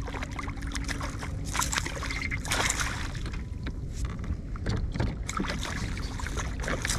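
Irregular splashes of water as a hooked striped bass thrashes at the surface beside a kayak, over a steady low rumble.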